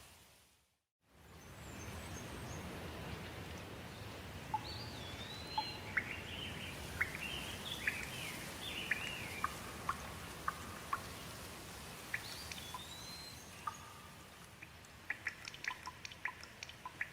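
Steady rain with birds singing over it: whistled calls that rise and fall, and quick chirps. There is a brief drop to silence just after the start, and from about fifteen seconds on a run of sharp drips.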